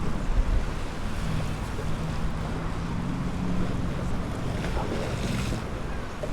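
Wind rumbling on the microphone over the wash of Lake Michigan waves. A brief hiss comes about five seconds in.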